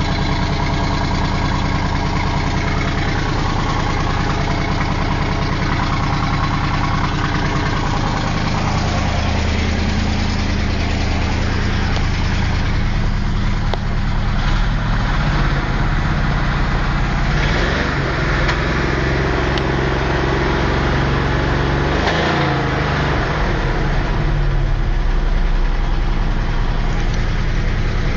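A 1974 Chevrolet Camaro's 650 cubic inch V8 running, its engine speed shifting several times after a steady first stretch. The engine carries a suspect noise that bothers the owner; what causes it is not identified.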